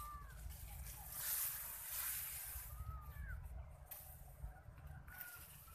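Tall rice plants rustling as someone pushes along a narrow paddy-field bund. The rustle swells and fades in waves over a steady low rumble, and a few short bird chirps come through.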